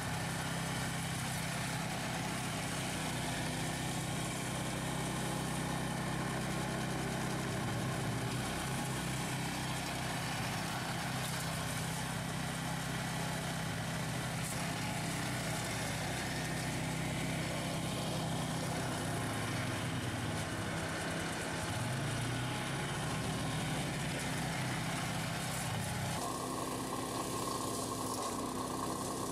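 The small petrol engine of a RAMMY front-mounted ATV mower runs steadily at working speed as it cuts grass, together with the ATV's engine. The engine note changes abruptly near the end.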